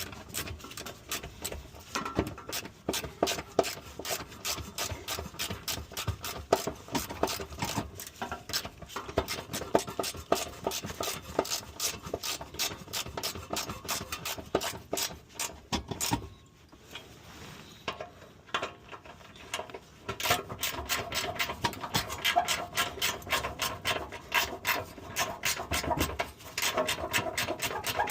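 Ratchet clicking rapidly as a 12 mm bolt is run in or out, in long runs of strokes with a pause of a few seconds past the middle.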